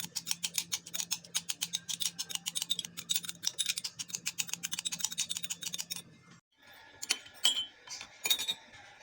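Fresh oregano leaves being crushed and pounded with a hard utensil in a container to draw out their juice: rapid sharp clicking strokes, several a second, that stop about six seconds in, followed by a few scattered knocks.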